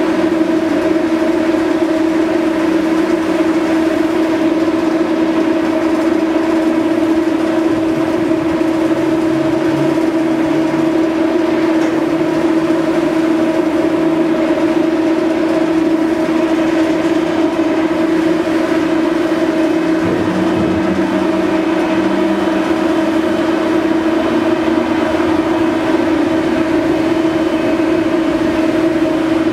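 Steady hum of the ferry MV Salish Eagle's onboard machinery, with one strong constant mid-pitched tone and a fainter higher one, while the vessel approaches its berth. A lower drone underneath shifts in pitch around ten seconds in and again about twenty seconds in.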